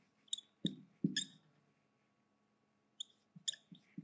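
Marker pen squeaking and tapping on a whiteboard in short strokes while writing, with a pause of about a second and a half in the middle.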